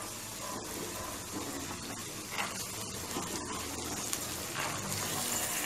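Onions, green chillies and soaked green peas sizzling steadily in hot ghee in a pressure cooker pan.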